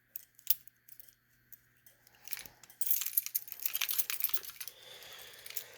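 Metal clicks and jingling keys as a manual fire alarm pull station is reset: a few separate clicks at first, then a busier rattle of clicks from about halfway through.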